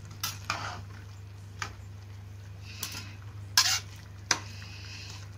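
Spatula scraping and knocking against a kadai as it presses and stirs blocks of instant noodles into vegetables and water. It makes about seven short scrapes, the loudest about three and a half seconds in, over a steady low hum.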